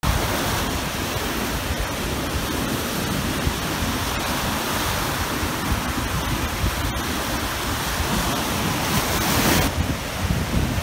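Lake Huron surf: choppy, whitecapped waves breaking steadily on the beach, with wind on the microphone adding a low, fluttering rumble. The sound shifts abruptly near the end.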